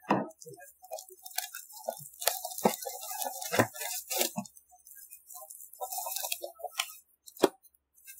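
Plastic shrink wrap being torn and peeled off a cardboard box, crinkling in irregular bursts, with knocks and taps as the box is handled and one sharp knock near the end.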